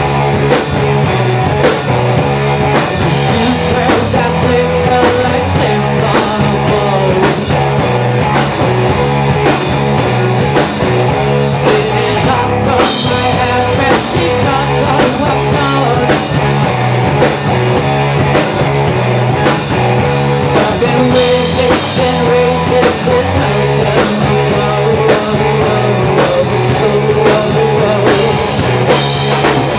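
A heavy rock band playing live and loud: a woman singing lead vocals into a microphone over electric guitar and a drum kit.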